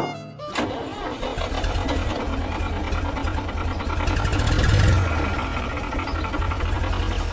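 Small engine starting and running with a rapid chugging pulse. It swells to its loudest about five seconds in, then eases back.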